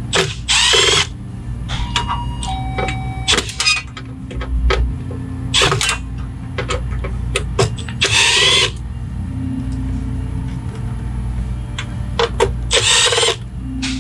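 Cordless drill-driver running in four short bursts of under a second each, backing out screws to free the power supply board, with small clicks of handling in between. A steady low hum runs underneath.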